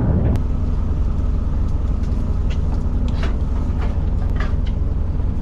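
Fishing boat's engine running, a steady low rumble with a held hum.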